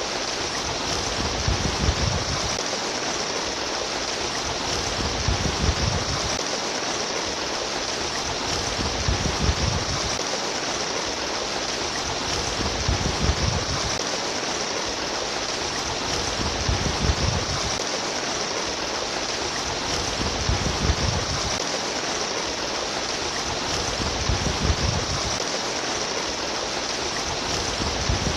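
Water running steadily in a stream, a continuous rushing and trickling, with a low swell that comes back about every four seconds.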